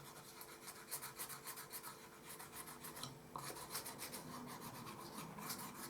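Faint rubbing and scratching of fingers pressing tape firmly down onto a light switch plate, with many small scratchy ticks.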